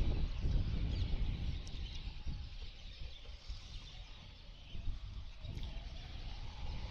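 Wind rushing over the microphone of a rider on a Honda SP motorcycle, with the bike running underneath; the noise drops off in the middle and builds up again near the end.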